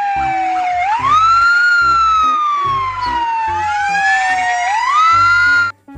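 Fire engine sirens wailing: the pitch jumps up quickly and then slides slowly down, twice, with a second siren overlapping. The wail cuts off suddenly near the end.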